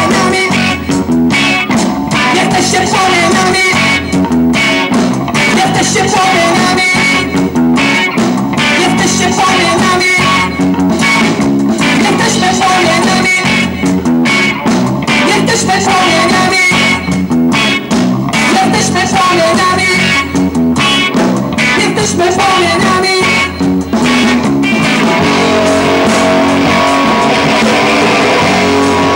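Live rock band playing: electric guitar, bass guitar and drums.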